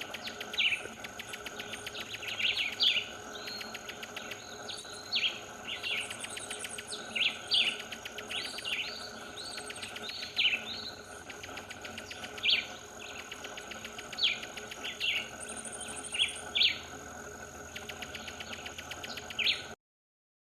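A bird calling with short, sharp chirps repeated every second or so, over a steady high whine and fast ticking in the background.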